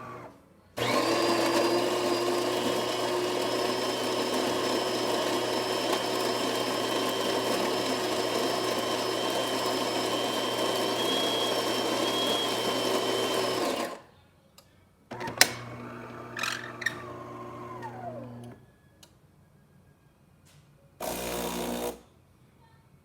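A DeLonghi Magnifica's built-in coffee grinder running steadily for about thirteen seconds at the start of a test brewing cycle. It is followed by a quieter motor hum with a few clicks that winds down in pitch, and a one-second buzz near the end.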